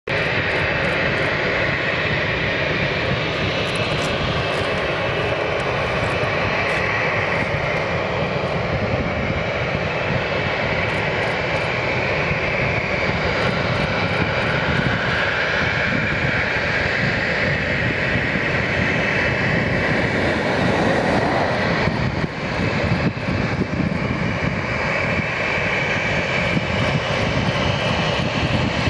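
Boeing 737-800's CFM56-7B jet engines running at taxi power: a steady whine over a low rumble.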